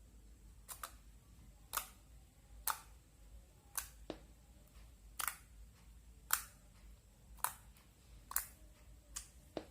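Slime being pressed and poked, giving sharp clicky pops about once a second, around ten in all.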